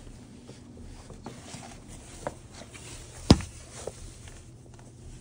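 Sneakers being taken out and put on over a tiled entryway floor: scattered soft knocks and shuffling, with one sharp knock a little past three seconds in.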